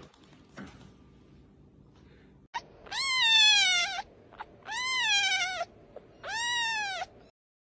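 Young kitten meowing three times, each call about a second long, high and rising then falling in pitch; the first is the loudest.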